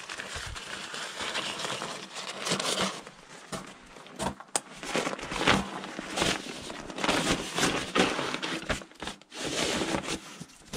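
Rustling and crinkling of a nylon backpack and clothing being handled, with scattered knocks and clicks of gear.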